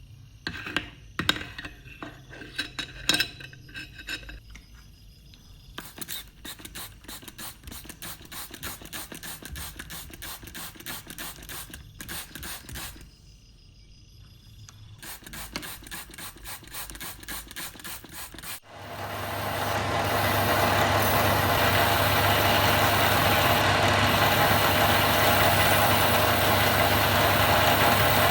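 Hand work on rusty metal: a few sharp knocks, then rapid back-and-forth scraping or filing strokes with a short pause. About two-thirds of the way in, a loud power tool or motor starts suddenly and runs steadily.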